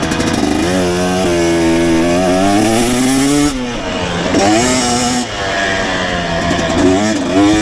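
KTM 250 dirt bike engine revving under way. Its pitch climbs for a couple of seconds, drops sharply about three and a half seconds in, then rises again.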